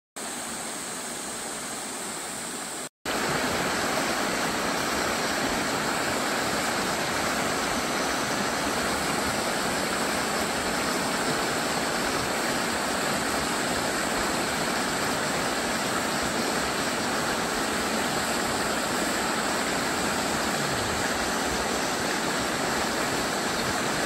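Steady rush of flowing stream water. About three seconds in it cuts out for an instant and comes back a little louder.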